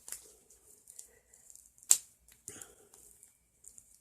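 Wrapper of a fizzy bath bomb being opened by hand: sharp clicks, one about two seconds in, with faint crinkling and rustling of the packaging.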